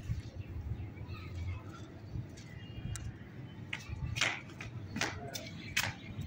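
Crows cawing: a run of four short, harsh calls about two-thirds of a second apart in the second half, over a steady low rumble of wind on the microphone.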